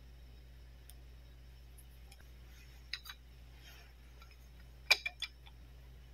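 Hard plastic toy pieces from a doctor play set clicking and tapping as they are handled: a soft pair of clicks about three seconds in, then a quick run of three or four sharper clicks about five seconds in.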